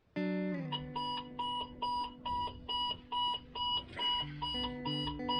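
Electronic background music starting suddenly: a held chord under a high, beeping note that repeats about twice a second.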